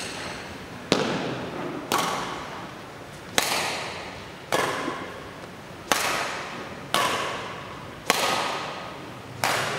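Badminton racquets striking the shuttlecock in a doubles rally: eight sharp hits, roughly one a second, each echoing in a large hall.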